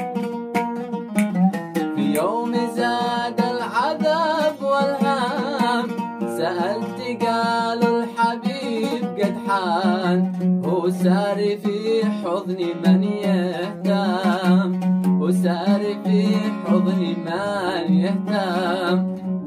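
Oud plucked in a steady rhythm, with a man's voice joining about two seconds in, singing a melismatic Arabic melody with a wavering vibrato over the oud.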